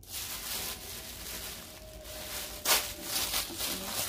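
Rustling of gift-box packaging and ribbon being handled as the box is opened, with one sharp tap about two-thirds of the way in.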